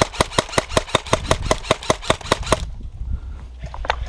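Airsoft gun firing a rapid, even string of shots, about seven a second, that stops short about two and a half seconds in; a few more shots crack near the end.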